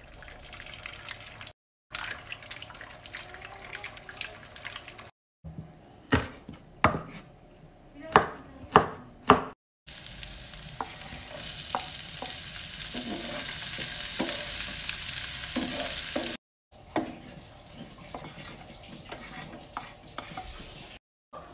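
Home cooking in a frying pan, in short cuts: a run of sharp knocks and clacks, then sliced shallots sizzling loudly in hot oil as a wooden spatula stirs them, then quieter scraping as fried egg pieces and greens are stirred in the pan. The sizzle, a few seconds long near the middle, is the loudest part.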